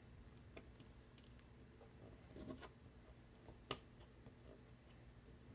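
Near silence with a few faint, scattered clicks and light scraping from a small fin key turning in the set screw of an FCS surfboard fin box, loosening the fin; one click a little after halfway is sharper than the rest.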